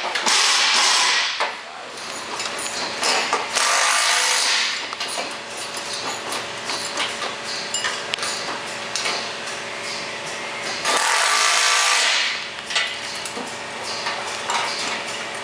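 A hand-held power tool running in three short bursts, near the start, about four seconds in and about eleven seconds in, on fasteners at the top of a steel two-post lift column. Light metallic clinks and clatter come between the bursts.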